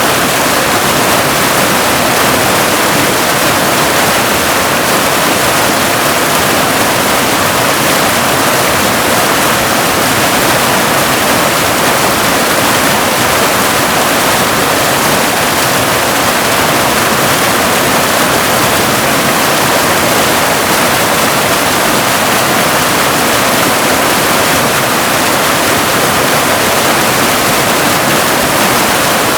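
Waterfall: a loud, steady, unbroken rush of falling water, more hiss than deep rumble.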